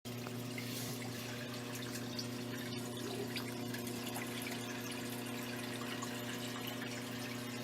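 Water trickling and splashing into an aquarium, with many small drips and ticks, over the steady low hum of a small electric aquarium pump or filter.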